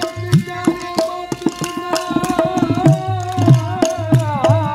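Live Rajasthani folk music. A hand drum plays deep bass strokes that slide up in pitch, mixed with quick lighter strokes, under a held melody line that bends and wavers.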